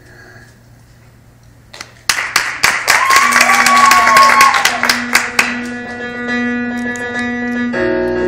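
After a quiet gap, an audience breaks into loud applause about two seconds in, with a cheer rising and falling in it. Steady held music tones come in under the clapping, and the music carries on as the applause dies away.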